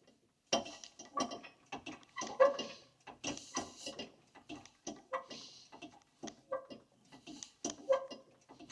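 Hand-pumped hydraulic shop press pressing new universal joint bearing caps into a driveshaft yoke: a string of irregular metallic clicks and knocks from the pump strokes and the press.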